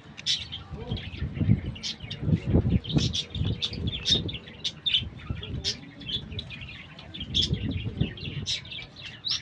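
Birds chirping in many short, high calls throughout, over irregular low thumps and rustles close to the microphone.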